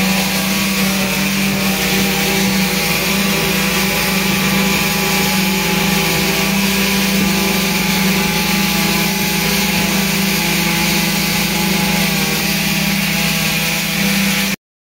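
Concrete poker vibrators running with a steady, loud hum while they consolidate freshly pumped concrete in a column's rebar cage. The sound cuts off suddenly near the end.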